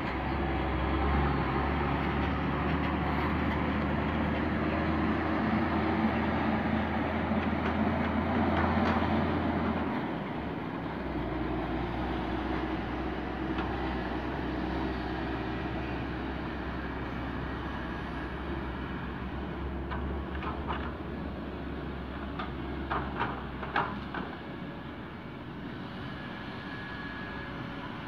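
Diesel engines of loaded dump trucks running as they drive across the dirt, a steady low rumble that drops in level about ten seconds in. A few brief knocks come in the second half.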